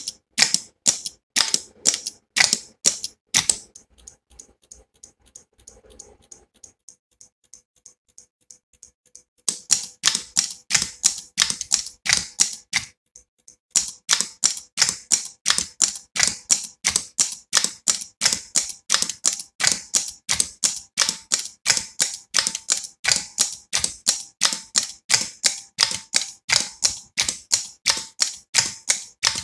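Electromechanical relays clicking in a fast, even rhythm of several clicks a second as a relay counting decade steps through its count. The clicking drops to faint for a few seconds about four seconds in, comes back loud, breaks off briefly near thirteen seconds and resumes.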